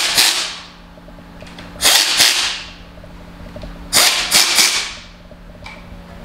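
A handheld power driver with a long extension runs valve cover bolts down in three short bursts of rapid rattling about two seconds apart.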